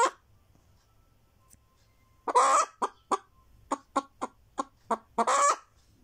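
Naked-neck hen cackling: a long drawn-out call, a run of six short clucks, then a second long call, the pattern of the cackle hens give around laying an egg. A brief call sounds right at the start.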